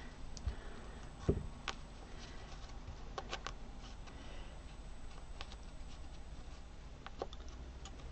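Quiet handling sounds: scattered soft clicks and taps as a glue stick is used and put down, and fabric is folded over a paper template and pressed down with the fingers. The loudest click comes about a second in.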